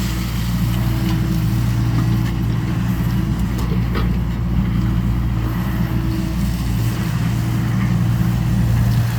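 John Deere excavator's engine running steadily at a constant speed, with a faint click about four seconds in.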